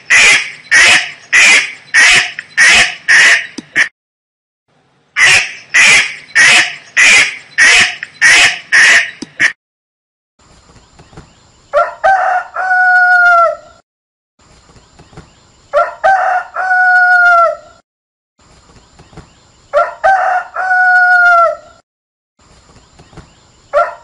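A domestic duck quacking in two quick runs of loud quacks, about two a second. After a short pause a rooster crows again and again, one crow about every four seconds, each ending in a falling tail.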